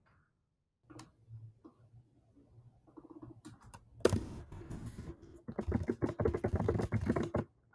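A few isolated clicks, then a fast run of keystrokes on a computer keyboard from about four seconds in, stopping just before the end.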